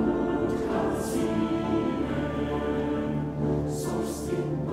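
Background music: a choir singing held chords over an orchestra, with a few brief swells of cymbal-like hiss.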